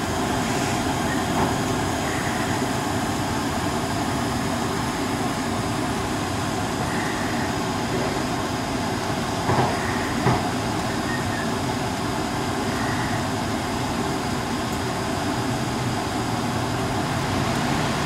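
Natural-gas furnace running with its burners lit: a steady rumble and rush of air, with two short knocks a little past halfway.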